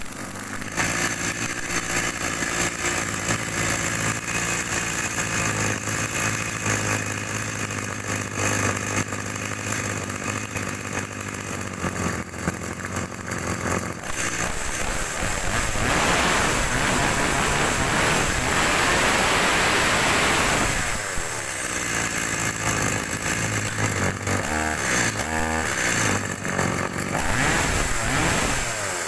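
Two-stroke Stihl chainsaw engine running, revved up to high speed for about six seconds past the middle, then dropping back, with a few short revs near the end.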